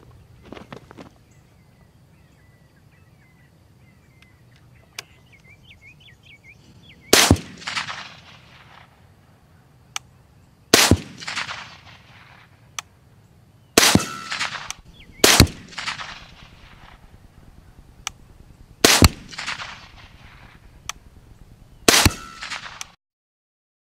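Suppressed LWRC REPR .308 rifle with a SIG SRD 7.62 titanium suppressor firing supersonic ammunition: six sharp cracks a few seconds apart, each trailing off with echo, heard both at the rifle and beside the hog carcass the bullets strike. Metered around 136–138 dB, loud despite the suppressor because of the supersonic bullet.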